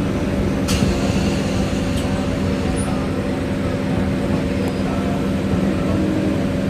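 An engine running steadily at a constant pitch, with a low rumble. Two short sharp clicks come about a second in and again about two seconds in.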